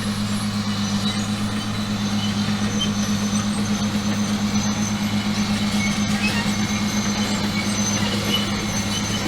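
Big rock saw trenching machine running steadily, its engine a constant low drone with a fast, even pulse under it.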